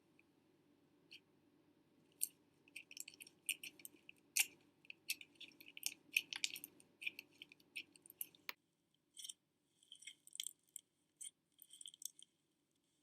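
Slime being poked and squished, giving quick sticky clicks and crackles in a rapid, irregular run. About eight and a half seconds in, the background hum drops out and a second run of clicking pops follows.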